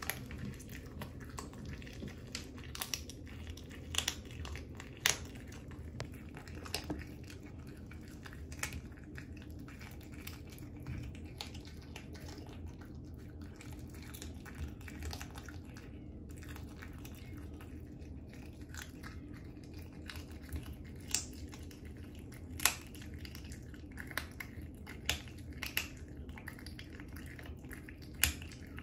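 A cat chewing a raw duck foot: irregular sharp clicks and crunches as its teeth work through the bone and cartilage, with a few louder cracks scattered through.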